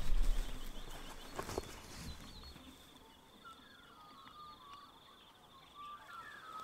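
Faint early-morning bird chirps, short and scattered, over a steady high-pitched trill. A low rumble fades out over the first couple of seconds.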